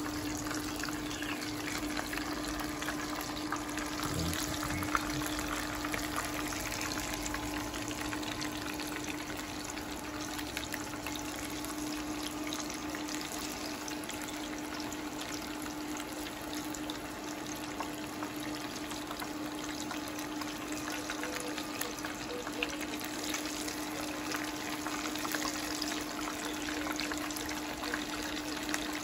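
Hot oil sizzling and crackling steadily in a frying pan as battered chicken pieces and sage leaves deep-fry, with a steady low hum underneath.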